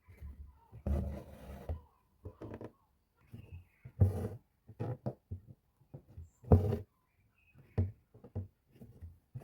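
Needle and thread being worked through fabric stretched in an embroidery hoop: irregular short rasping pulls and light taps, with two louder pulls about four and six and a half seconds in.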